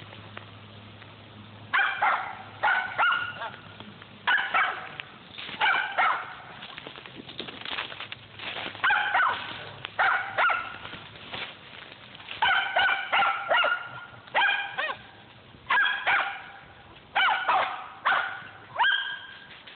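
Squirrel dogs barking treed at the base of a tree, in repeated bunches of two or three barks that start about two seconds in.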